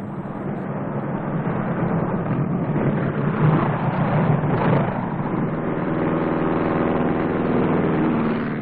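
Stinson L-5 Sentinel's Lycoming O-435 six-cylinder engine running as the plane passes low along the runway. It grows louder to its peak about three to five seconds in, then settles to a steady drone.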